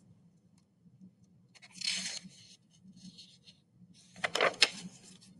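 Paper pages of a picture book rustling as a page is turned: a soft swish about two seconds in, then a few crisp flicks of paper about four and a half seconds in.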